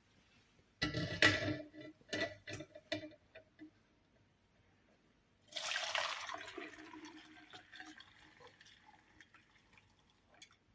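A few clinks and knocks of kitchenware about a second in, then liquid being poured, starting abruptly about halfway through and trailing off over about three seconds.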